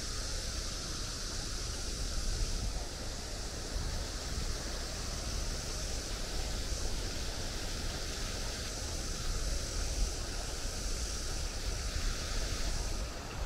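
Steady outdoor ambience: an even rushing noise with a deep rumble, its high hiss easing off near the end.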